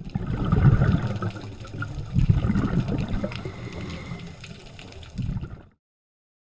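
Underwater water noise heard through a GoPro's waterproof housing: a muffled, low rumbling and gurgling of moving water and bubbles that swells about a second in, again a little after two seconds and once more near the end, then cuts off suddenly.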